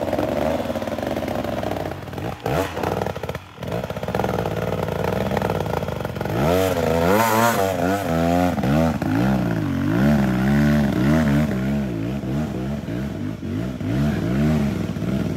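Two-stroke dirt bike engine labouring up a steep, rutted hill climb: low, uneven running at first, then from about six seconds in the revs rise and fall again and again as the rider feeds the throttle to find grip.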